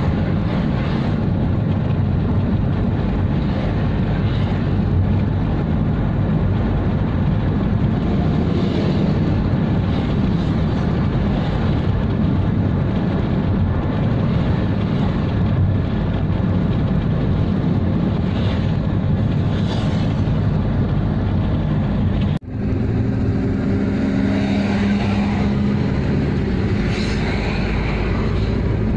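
Steady road and engine noise from a car driving along a highway, with a momentary dropout about 22 seconds in.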